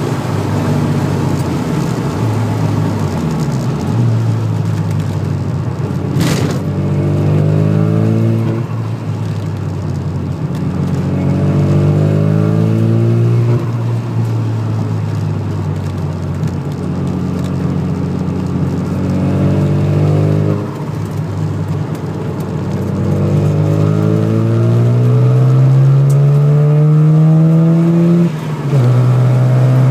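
Car engine heard from inside the cabin while lapping a circuit. The revs climb under acceleration several times and drop back at each lift or gear change. There is a single sharp click about six seconds in.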